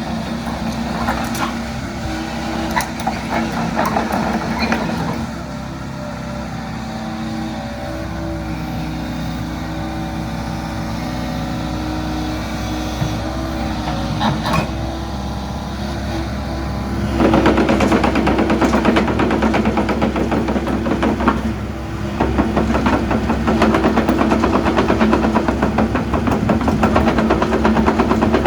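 Hitachi ZX75UR-3 excavator's diesel engine running steadily, with a few sharp clanks early on; about two-thirds of the way through it steps up to a louder, busier running speed, dips briefly and picks up again.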